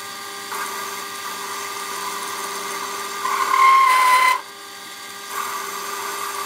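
Small hobby lathe running while the tool turns a 1214 leaded-steel hex bar down to a round shaft, with cutting noise over the steady machine hum. About three and a half seconds in the cut chatters into a loud high-pitched squeal that stops suddenly after about a second; the cutting resumes near the end. It is the chatter the small lathe cannot shake off on this job.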